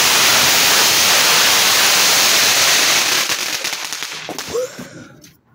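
Firework spraying sparks on the ground with a loud, steady hiss, which dies away from about three seconds in with scattered crackles.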